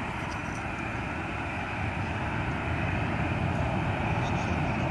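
Jet airliner engine noise at the airport, a steady rushing rumble that grows slightly louder toward the end.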